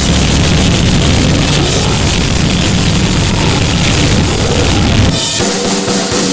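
Harsh noise music: a loud, dense wall of distorted static and crackle filling the whole range. About five seconds in the bottom drops out for about a second, leaving a thinner hiss with a few steady hum-like tones.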